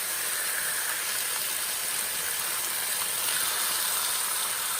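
Miso-marinated salmon fillets sizzling steadily in a hot pan, searing on their second side.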